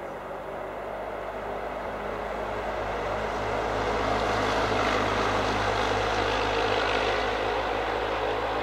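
SU42 diesel locomotive approaching with its passenger train: a steady low engine drone under a rumble of the running train, growing steadily louder for about four seconds and then holding.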